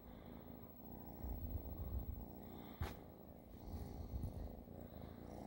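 Kitten purring, a low rumble that swells and fades every second or so, with one brief click about halfway through.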